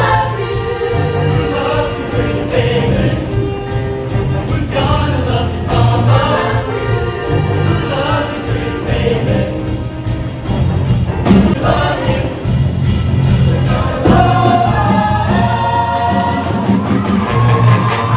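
Show choir singing in full voice over instrumental accompaniment with a strong, pulsing bass line.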